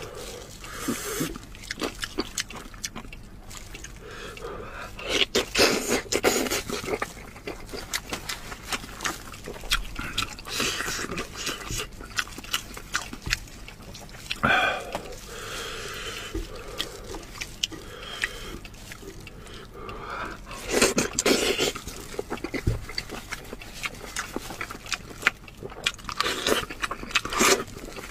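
Close-miked eating of a braised goat head: wet sucking, slurping, smacking and chewing as meat is pulled off the bone and eaten, in irregular bursts.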